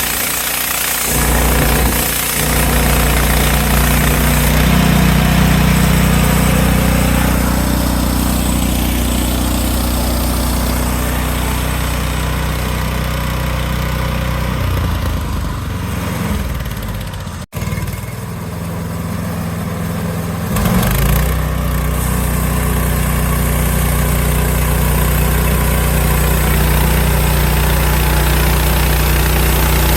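Sawmill's gas engine running steadily, its pitch sinking about 15 seconds in. It cuts out briefly near 17 seconds, then revs back up about 21 seconds in and runs on steadily.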